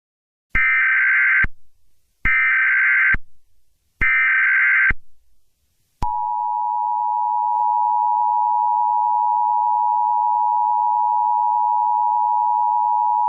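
Emergency Alert System SAME header: three short bursts of digital data tones, about a second each, encoding the alert. Then, about six seconds in, the steady two-tone EAS attention signal (853 and 960 Hz sounding together) starts and holds, announcing an emergency alert.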